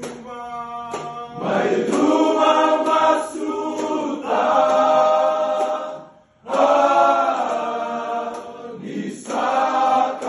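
A group of men singing together unaccompanied in harmony, holding long chords. The singing drops out briefly about six seconds in, then resumes.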